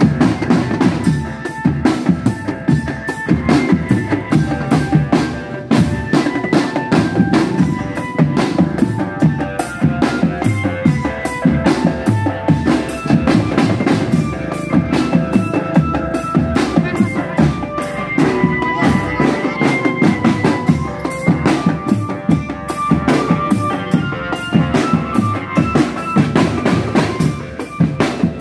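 Marching drum band playing: snare drums, bass drums and marching toms beat a fast, steady rhythm without a break. A melody of held notes that change pitch every second or so sounds over the drumming.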